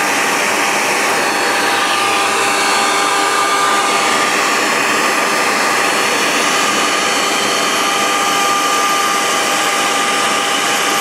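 6040 CNC router's spindle motor running steadily while a ball-nose bit mills a round part turned on the fourth axis: a continuous whine with a few steady high tones over an even cutting hiss.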